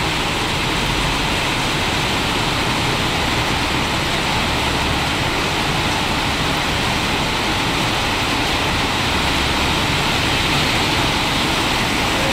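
Light rain falling steadily on wet pavement and puddles, an even hiss.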